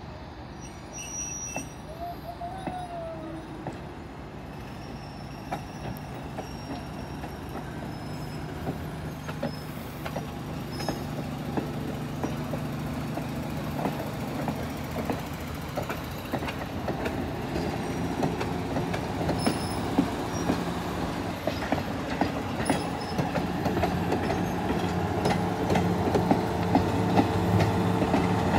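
Passenger coaches rolling past, their wheels clicking over the rail joints. The diesel engine of a GE 65-ton switcher locomotive grows steadily louder over the last several seconds as it draws near.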